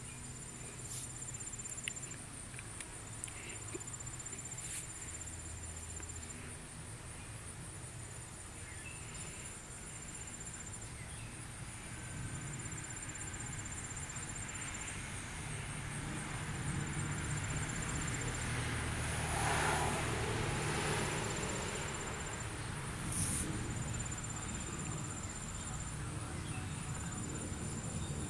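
Insects trilling steadily at a very high pitch, with a second insect's shorter trills repeating every two to three seconds. A low rumble underneath swells about two-thirds of the way through.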